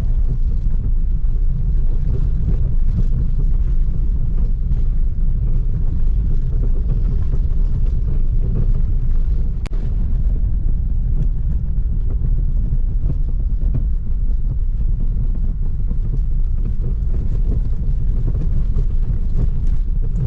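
Steady low rumble of a car on the move, with wind buffeting the microphone; it cuts off suddenly at the very end.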